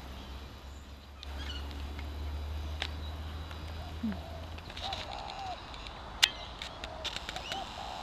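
Wetland animal calls: a run of short honking calls, each rising and falling, in the second half, with faint high chirps, over a low rumble that drops away about halfway through. A sharp click comes just after six seconds.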